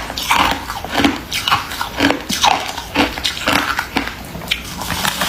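Crunchy white freezer frost ice being bitten and chewed close to the microphone: a steady run of crisp crunches, about two a second.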